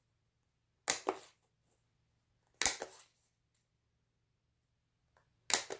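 Hand-held hole punch snapping through a paper pocket three times, about every two seconds. Each punch is a sharp click followed at once by a second, smaller click.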